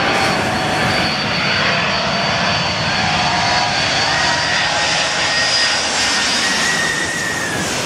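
Boeing 747 jumbo jet's four jet engines running loud as it passes low overhead on its landing approach: a steady rush with a high whine over it, easing off near the end.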